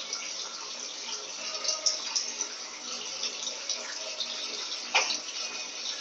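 Electrolux Turbo Economia 15 kg top-loading washing machine in its spin cycle, with a steady rush of water being flung out of the spinning basket and drained. A single sharp knock comes about five seconds in.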